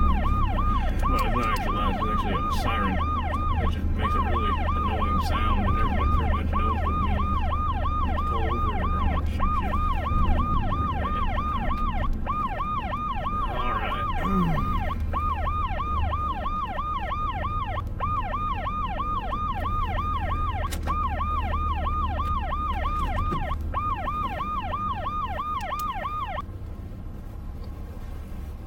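Police-style electronic siren on a fast yelp, rising and falling about three to four times a second, over the steady low rumble of a pickup truck heard from inside its cab. The siren cuts off about two seconds before the end.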